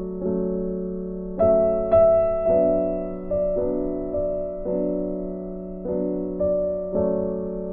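Background music: a piano-like keyboard playing slow chords, each struck and left to fade, with a louder chord about a second and a half in.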